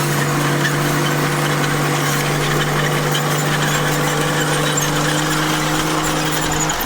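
Komatsu bulldozer's diesel engine running steadily at a constant pitch, with a dense hiss of working noise over the engine drone.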